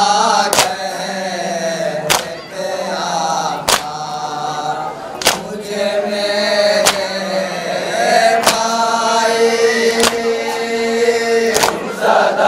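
Men of a Shia mourning group chanting a noha in Urdu, a lead voice on a microphone with a chorus of men joining in and holding long notes. Sharp slaps of hands striking chests in unison (matam) keep a slow, even beat about every one and a half seconds.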